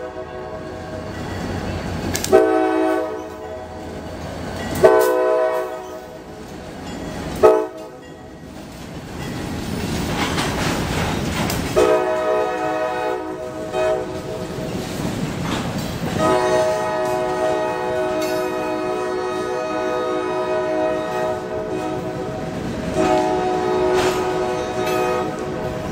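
Diesel freight locomotive's air horn sounding a chord of several notes: three short blasts in the first eight seconds, then long, nearly continuous blasts from about twelve seconds in. Between and under the blasts the train runs past, with engine noise and the clatter of freight car wheels.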